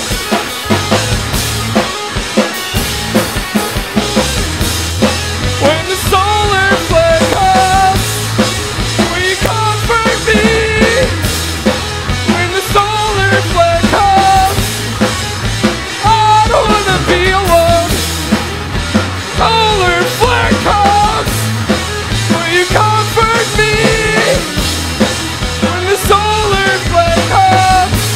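Live funk-rock band playing: a drum kit and bass groove with electric guitar, and a bending, sliding lead melody line coming in about five seconds in.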